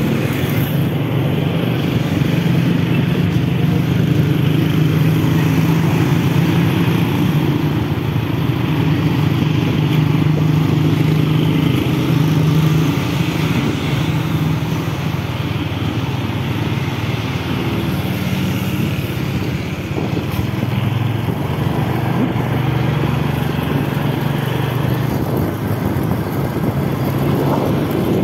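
Small motorcycle engine running steadily as it rides along a road, with road and wind noise.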